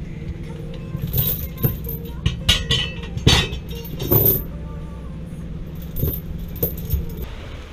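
Anchor chain clinking and clanking against a steel fluke anchor and the boat deck as the anchor is handled, in uneven bursts of rattling that are loudest about three to four seconds in, over a steady low hum.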